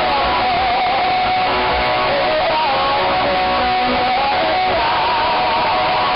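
Live pop-rock band music played loud through PA speakers, with guitars and a wavering, sliding melody line over the full band. The sound is distorted because it was recorded very close to the speakers.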